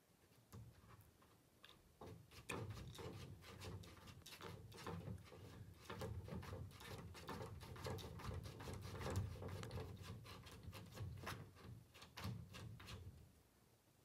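Faint, rapid, irregular clicking of a computer mouse scroll wheel as a web page is scrolled, over soft rubbing. It starts about half a second in and stops about a second before the end.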